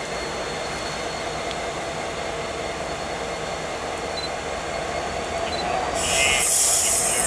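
EMD SD70ACe diesel locomotive approaching at the head of a freight train: steady engine rumble and wheel noise, growing louder, with a harsh high-pitched hiss breaking in about six seconds in.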